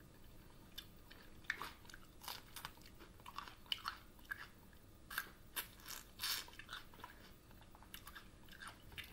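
A person chewing crunchy raw sweet pepper close to the microphone, with irregular crisp crunches.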